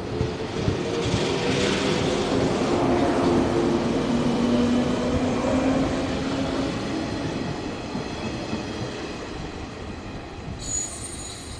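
JR 115-series electric train accelerating away from a station, its motors and gears humming with a slowly shifting pitch over the rumble of the wheels, a few clicks of wheels over rail joints early on. The sound fades as the train draws away, and near the end a high-pitched wheel squeal begins.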